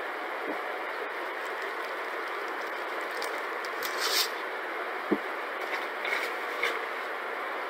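A paper towel rubbing and rustling against a clear plastic container as it is wiped dry, with a brighter scraping rustle about four seconds in and a light knock about five seconds in as the container is set down, over a steady hiss.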